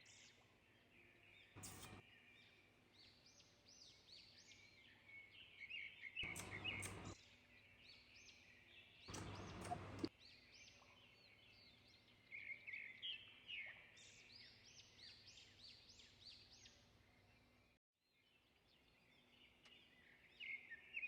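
Faint birds chirping, with many short, quick chirps scattered throughout. Three brief bursts of hiss come through along with them.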